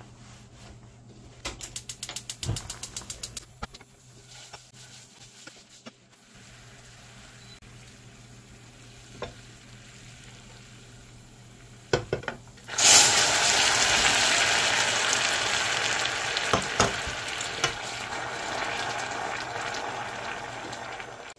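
A quick run of sharp clicks near the start, then a sudden loud sizzle in a pan from about 13 s in that slowly dies down.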